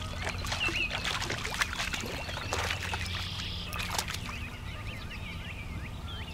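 Hooked bass thrashing and splashing at the pond surface as it is reeled in to the bank, a run of splashes over the first four seconds or so. Small birds chirp throughout.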